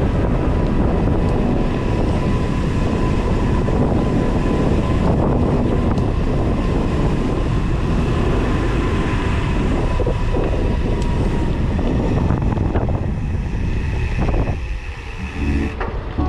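Wind rush and tyre rumble on an action camera's microphone from a mountain bike rolling along a paved lane; a steady, dense rumble that dips near the end.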